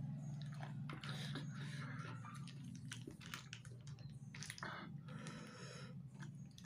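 Soft chewing and mouth noises from eating spicy cooked rice-field snails, with small scattered clicks as snail shells are picked from the plate.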